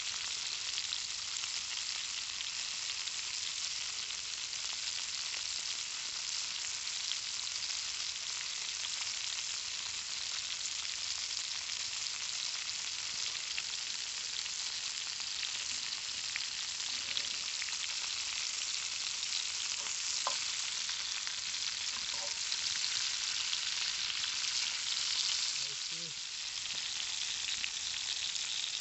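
Conecuh smoked sausage links frying in a cast iron pan over a campfire: a steady hissing sizzle with fine crackling throughout.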